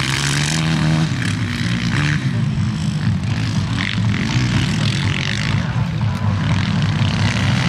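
Small engines of racing lawn tractors and quads running hard, their pitch rising and falling as they rev.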